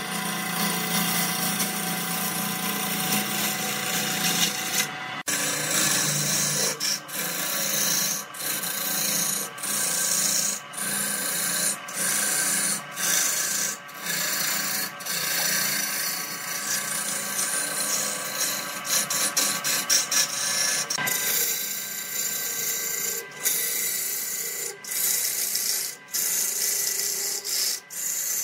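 Gouge cutting a large wood blank spinning on a lathe: a steady rasping scrape of the tool peeling off shavings, broken by short dips about once a second for stretches.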